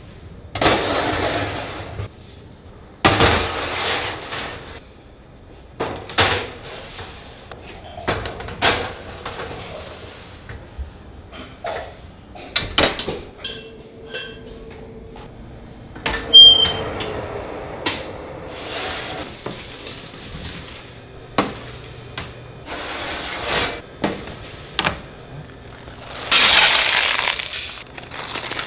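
Metal baking trays and tart pans clattering and scraping as they are slid onto the racks of a convection oven, with two short high-pitched tones midway. Near the end, ceramic pie weights rattle loudly for about two seconds as they are poured into a parchment-lined tart shell.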